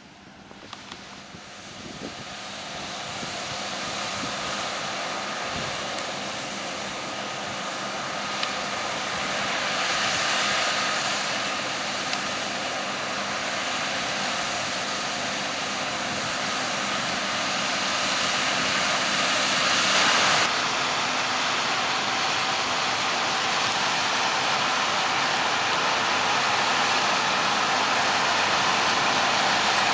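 Heavy harvest machinery running and drawing closer, getting steadily louder. It is a dense, steady mechanical drone with a faint whine in it.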